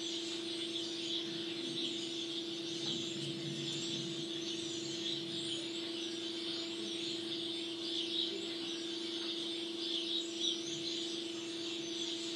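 Birds chirping continuously in outdoor ambience over a steady low hum, heard as a video's soundtrack played back through room speakers.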